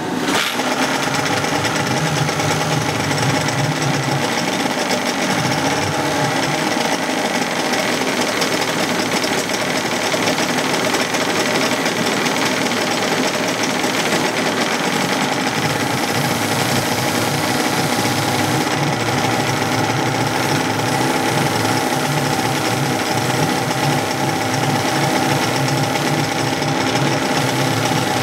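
1980s Suzuki DT-25 two-stroke outboard running steadily on a test stand, not running as smoothly as it should.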